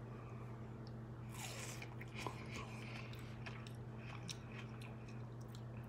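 A person chewing a mouthful of watermelon, with soft crunches and small scattered clicks over a steady low hum.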